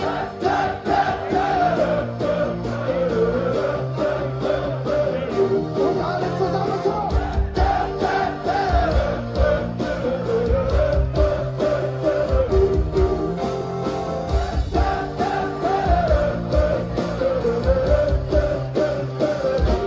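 Live band with guitars, accordion and drums playing an upbeat song with a steady beat, amplified through a PA in a festival tent, while a wordless melody is sung along as a warm-up sing-along with the crowd.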